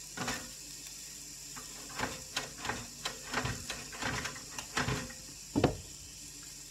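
Irregular clicks and light knocks, about a dozen, the loudest a little before the end, as bagel halves are handled and put back in to toast, over a faint steady hiss.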